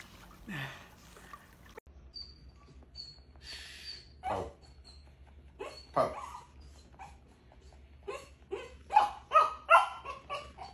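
A puppy yelping and yipping. There are two single yelps that fall in pitch, about four and six seconds in, then a quick run of about six short high yips near the end.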